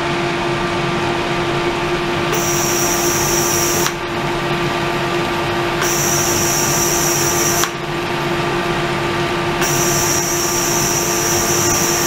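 Flow-type ultrasonic tank running with its water circulating: a steady hum and rush of water, with a high hiss from the ultrasonic cavitation switching on three times for a second or two, cutting off each time with a faint click.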